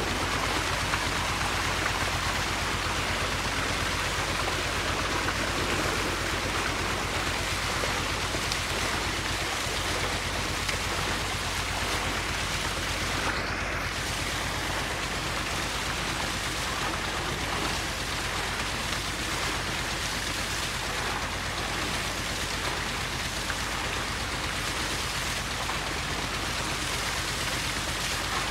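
Tube well outlet pipe gushing a heavy jet of water into a brick tank and over a dog standing in it: a steady rushing splash with a low hum underneath.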